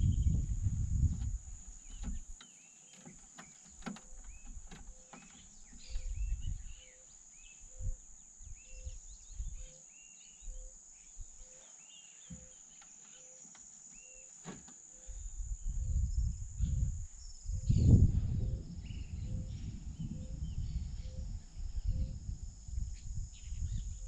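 Steady high-pitched buzzing of insects, with scattered short bird chirps and a faint note repeating about twice a second. Bouts of low rumbling noise come at the start and again from about two-thirds of the way through, loudest a little later.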